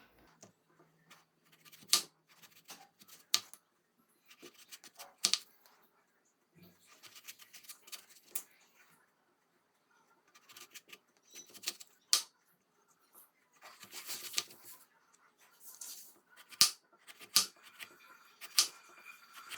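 Kitchen knife slicing vertically through a raw potato, each cut ending in a sharp click or knock as the blade comes down. The cuts come irregularly, a second or several apart.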